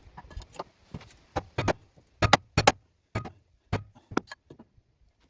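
Irregular sharp metallic clicks and clinks of tools and small metal parts being handled, with two louder clanks a little past two seconds in.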